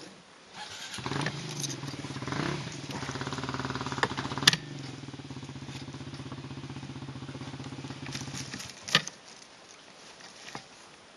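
Motorcycle engine starting up, revving unevenly for a few seconds, then running steadily before it cuts off. Two sharp knocks sound, one in the middle and one just after the engine stops.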